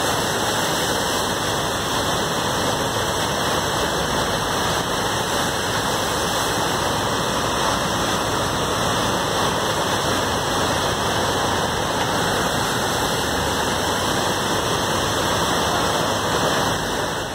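Fast river water rushing and churning through a standing surf wave: a steady, unbroken rush of whitewater.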